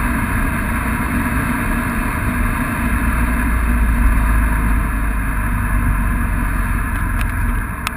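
Cabin noise of an Audi A6 C6 3.0 TDI V6 diesel at over 200 km/h and slowing: steady wind and tyre noise over a low engine rumble. A few sharp clicks near the end.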